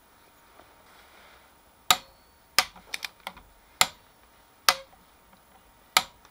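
Click-type torque wrench clicking repeatedly as it reaches its set torque on a milling vice's screw: five sharp metallic clicks with two softer ones between, roughly a second apart, starting about two seconds in.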